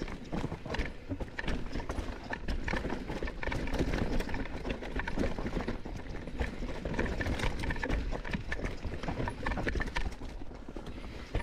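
Mountain bike riding down a rough singletrack trail: tyres rattling over rocks and roots, and the chain and frame clattering in quick, irregular knocks. A steady low rumble of wind on the microphone runs underneath.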